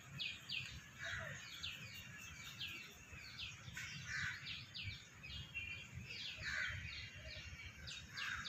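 Small birds chirping: repeated short, high, downward-sliding chirps, a few a second, over a low background rumble.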